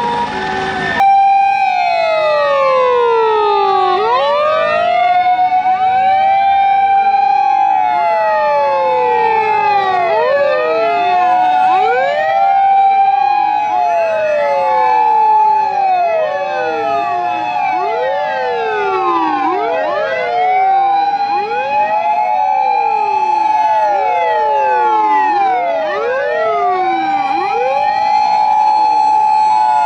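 Several fire engine sirens wailing at once, their slow rising and falling glides overlapping out of step, the wail repeatedly climbing to a held high note and then sliding down.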